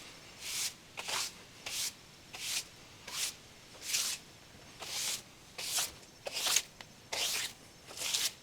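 A brush sweeping a wooden log or slab surface with quick, even swishing strokes, about two a second.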